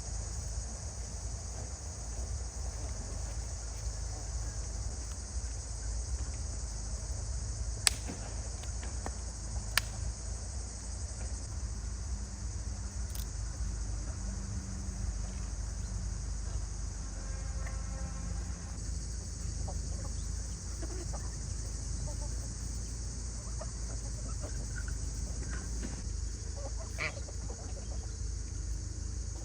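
Chickens clucking over a steady high hiss and a low rumble, with two sharp clicks about eight and ten seconds in.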